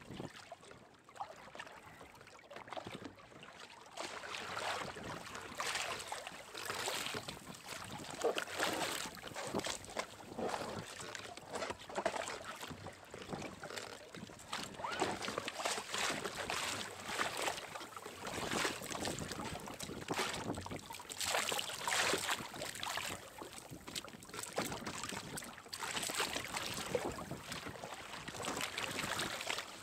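Choppy sea water slapping and splashing against a kayak's hull, with wind on the microphone; quieter for the first few seconds, then louder and more broken.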